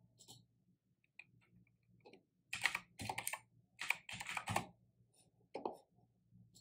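Typing on a computer keyboard: a quick run of keystrokes about two and a half seconds in, then one more click near the end.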